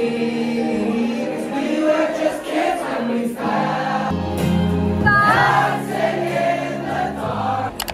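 A group of teenage students singing a song together in a crowd, many voices on the same melody over a playing backing track with a steady bass line.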